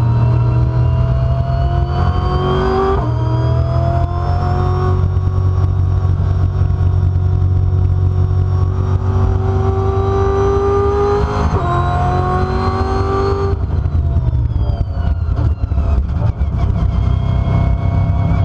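Brabham BT62's naturally aspirated 5.4-litre V8 race engine at full throttle, its note climbing through the revs and dropping sharply at each upshift, about three seconds in and again past the eleven-second mark. The note then falls away for several seconds as the car slows, with a few sharp pops, before climbing again near the end. It is heard from inside the cockpit over a heavy low rumble.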